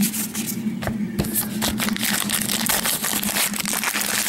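Trading card pack wrapper being crinkled and torn open by hand: dense, irregular crackling, heaviest from about a second in until near the end.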